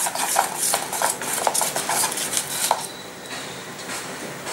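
Metal spoon stirring a thick gram-flour batter in a stainless steel bowl: repeated scrapes and clinks against the bowl. They stop about three seconds in.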